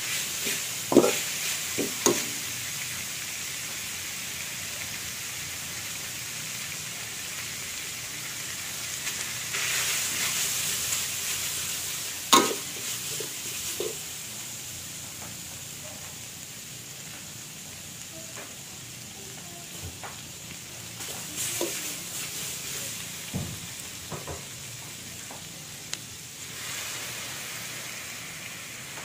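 Stir-fry sizzling steadily in a metal wok, with a metal spatula scraping and clanking against the pan. The sizzle swells twice, and one sharp clank of the spatula on the wok, about twelve seconds in, is the loudest sound.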